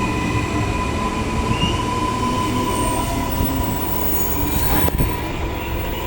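Electric commuter train running out of the station: a steady low rumble with a held high whine over it, and one sharp click about five seconds in.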